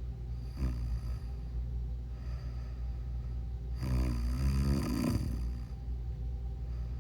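A person snoring: a short snore just under a second in, then a longer, louder snore with a wavering pitch about four seconds in, over a steady low hum.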